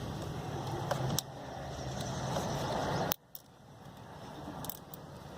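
Light handling noise over a steady background hum: a few isolated sharp clicks as wiring and zip ties are handled. The background cuts out abruptly about three seconds in, then creeps back.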